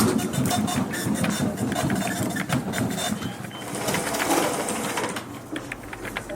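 Office fax machine or printer running, a rapid mechanical chatter of clicks with a few short, faint high beeps.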